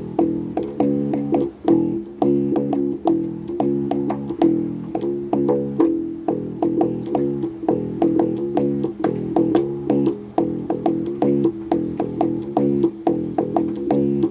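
Bass guitar being played: a continuous run of plucked notes, several a second.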